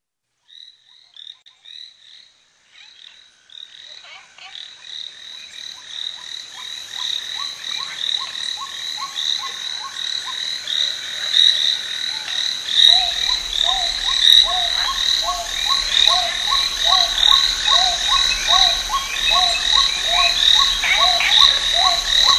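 A chorus of frogs calling: many short, rapidly repeated calls, a high pulsing chirp and lower rhythmic croaks. They fade in from silence over the first few seconds and grow steadily louder. A low steady hum joins about halfway through.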